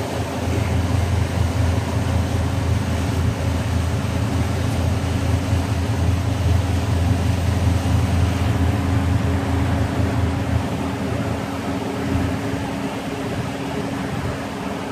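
A motorboat's engine running steadily under way, a low even drone over a constant hiss of wind and water.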